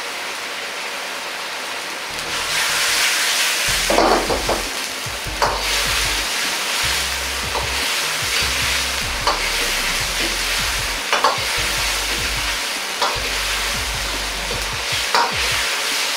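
Taro boiling hard in sauce in a wok over a high flame, with a steady sizzling hiss that grows louder about two seconds in. A ladle stirring through the pieces knocks and scrapes against the wok every second or two.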